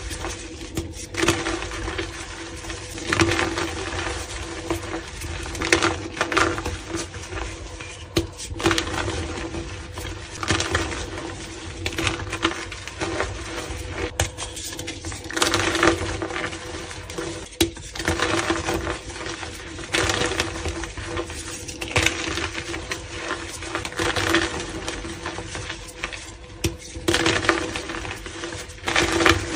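Reformed gym chalk blocks crushed and crumbled in bare hands: dry crunching and crackling as the chalk breaks into pieces and powder, with louder crunches every second or two.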